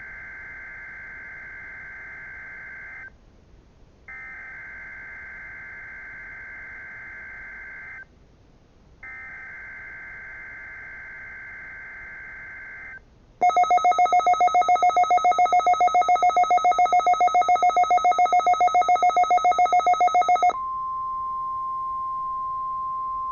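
NOAA Weather Radio Required Weekly Test: three bursts of SAME digital header tones, a harsh warbling data sound, each a few seconds long. Then, about 13 seconds in, a loud rapid electronic beeping lasts about seven seconds. It gives way to a steady single-pitch warning alarm tone near 1 kHz.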